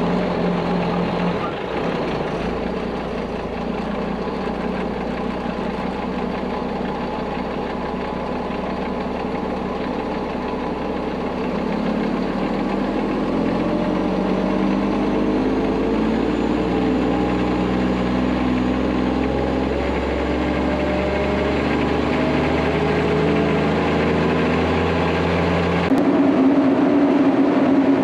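Diesel engine of a Mack truck hauling a lowboy trailer, running steadily, its pitch climbing slowly through the second half. The sound changes abruptly near the end.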